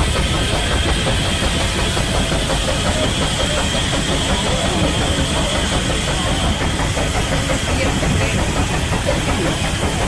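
Rack-railway steam locomotive puffing steadily as it climbs, a fast, even beat of exhaust with a steady hiss of steam above it.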